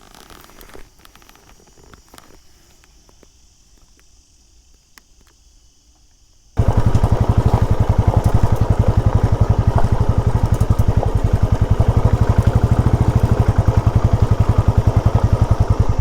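Quiet outdoor ambience with a faint insect chirr. About six and a half seconds in, a motorcycle engine cuts in suddenly, loud, and runs steadily with rapid, even pulsing.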